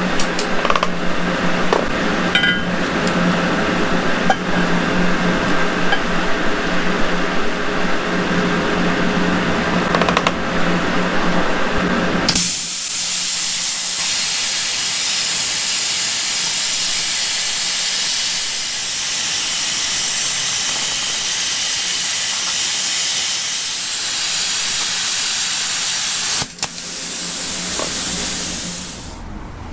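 Plasma cutter cutting 1/4-inch steel plate: a loud steady hiss of the cutting arc and air starts about twelve seconds in, breaks off for a moment near the end, resumes briefly and stops. Before the cut, a steady machine hum with scattered clicks.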